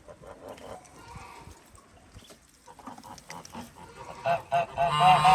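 Geese honking: a few soft scattered calls, then a loud run of rapid, repeated honks in the last second or so.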